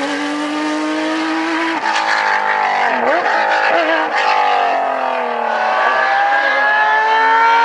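Rally car engines running hard at high revs, with edits between clips. The engine note holds high, drops and wavers as the driver lifts off about two to three seconds in, then climbs steadily again near the end under acceleration.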